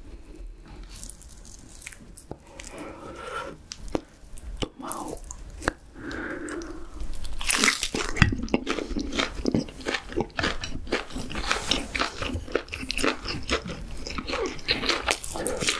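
Close-miked mukbang eating sounds: a bite into a grilled tomahawk chop and crunchy, wet chewing. The chewing is soft for the first several seconds and grows louder and crackly from about seven seconds in.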